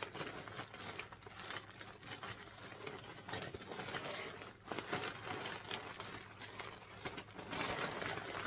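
Rustling and crinkling of packaging and fabric as clothing is handled and unfolded, with a louder stretch of rustling near the end.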